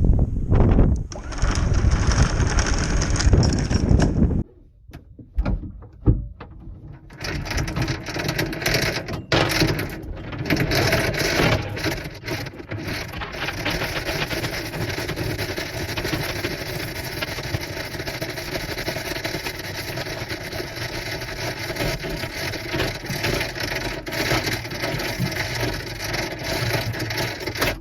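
Anchor chain clattering as it is hauled out of a boat's chain locker, metal links rattling and knocking continuously, with a short pause and a few separate clanks a few seconds in before the clatter resumes.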